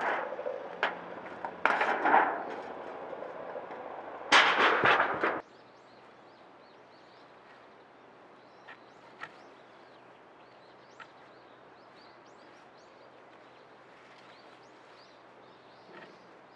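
Hand work on an old straw thatch roof: sharp knocks and two loud rough, noisy bursts in the first few seconds, the second lasting about a second. Then the sound drops suddenly to a quiet outdoor background with faint high bird chirps and a few soft clicks.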